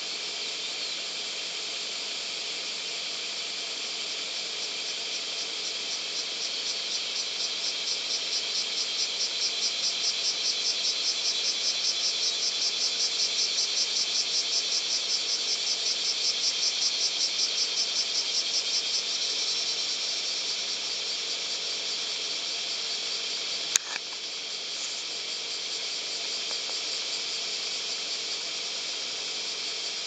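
A cicada singing in a rapid, even pulsing trill that swells in a few seconds in and fades away past the middle, over a steady high insect hiss. A single sharp click comes near the end.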